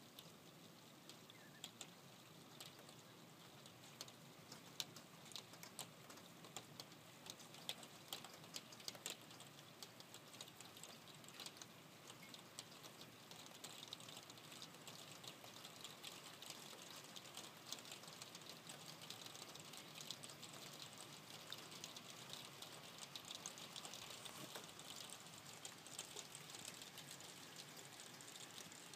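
Faint rain, with many separate drops ticking against a surface; the patter grows a little louder in the second half.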